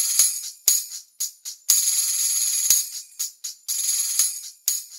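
Two tambourines played loudly, their jingles shaken in rolls broken by sharp single strikes.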